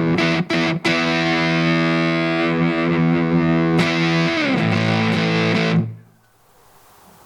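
Electric guitar played through a transistor fuzz pedal. A couple of quick choked chord stabs lead into a held, heavily fuzzed chord that slides down in pitch a little after four seconds and is cut off about six seconds in, leaving faint amplifier hiss.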